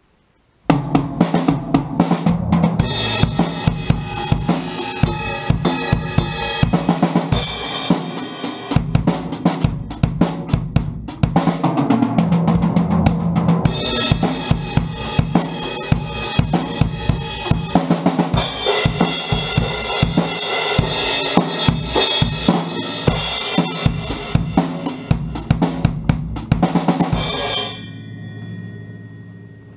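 Pearl Export drum kit played in a steady beat of bass drum, snare and cymbals, starting about a second in. Near the end the playing stops and a cymbal rings out and fades.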